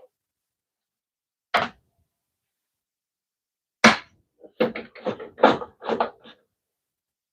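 Hard knocks and clatters from adjusting a DeWalt DWE7491 table saw's rip fence: a sharp knock about a second and a half in, another near four seconds, then a quick run of about half a dozen knocks.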